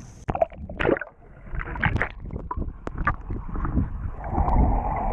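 Water splashing and sloshing beside a small boat, with irregular knocks and handling noises against the hull, while a mahi mahi is handled and let go over the side. A steadier rush of water sound sets in near the end.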